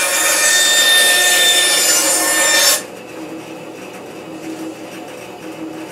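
Shop-built wooden bandsaw cutting through a piece of quarter-inch plywood paneling. The loud cut stops abruptly about three seconds in, and the saw runs on more quietly with a steady hum.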